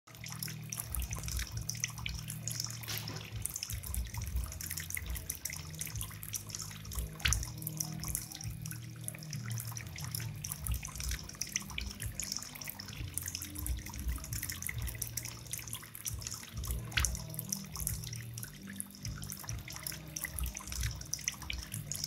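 Bamboo water fountain: thin streams of water pour from bamboo spouts into water-filled bamboo cups, a continuous trickling and splashing.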